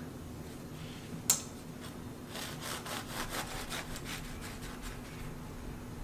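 Serrated bread knife sawing back and forth through a loaf of homemade cassava bread, a rasping stroke about three or four times a second, after one sharp click about a second in.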